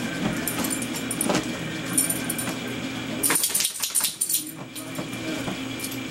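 A dog pawing and scratching at a blanket on a bed: fabric rustling with scattered scratches and a quick flurry of them about three and a half seconds in, over a steady low hum.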